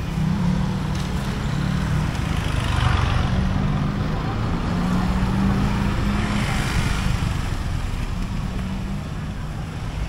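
Street traffic noise: vehicle engines running with a steady low hum.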